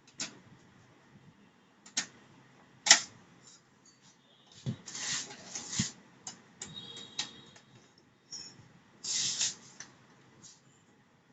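Screwdriver and hands working screws out of a laser printer's plastic case: scattered sharp clicks, the loudest about three seconds in, and short scraping and rattling around five to six seconds and again near nine seconds.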